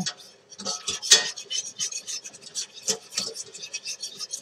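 A utensil scraping and clicking against the inside of a stainless steel saucepan in quick, irregular strokes, stirring an oil-and-flour roux.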